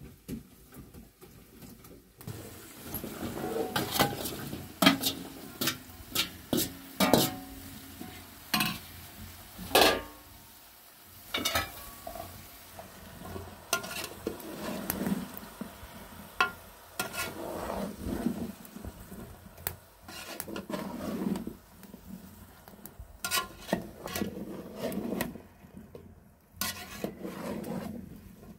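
Cookware and utensils clinking, knocking and scraping at irregular intervals during cooking, with a few sharper clanks.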